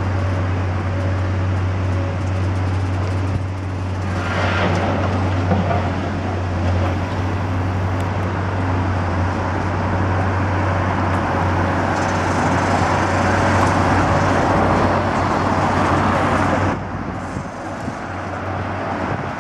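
Demolition excavator's diesel engine running steadily with a low hum. The noise swells from about twelve seconds in and drops off sharply a few seconds before the end.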